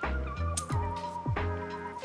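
Background music with a steady drum beat, bass and a wavering, whistle-like lead melody.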